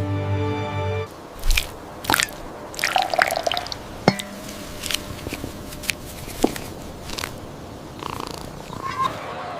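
A cartoon cat's short meows among scattered sharp clicks and knocks, after a held musical chord cuts off about a second in.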